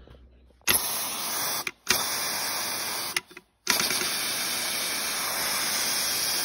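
Pressurized spray hissing in three bursts that start and stop abruptly: two of about a second each, then a longer one of about three seconds.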